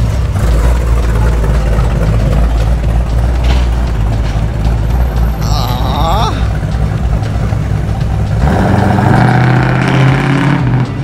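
Classic Dodge Charger's engine running with a deep, steady rumble as the car pulls away. It gets louder about eight and a half seconds in as the driver gives it more throttle. A brief rising whine sounds in the middle.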